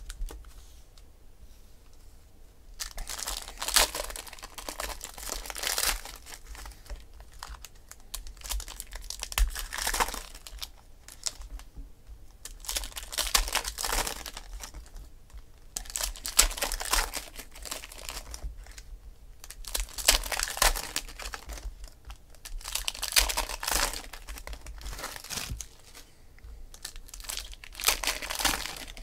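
Foil trading-card pack wrappers crinkling and tearing as packs are ripped open by hand, in repeated bursts every few seconds.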